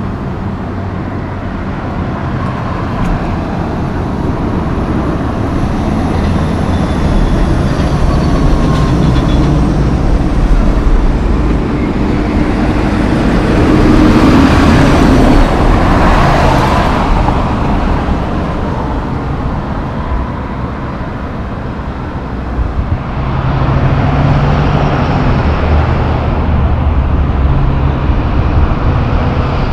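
Loaded Western Star logging truck driving past on the highway, its diesel engine and many tyres growing louder to a peak about halfway through, then fading. Other road traffic follows near the end.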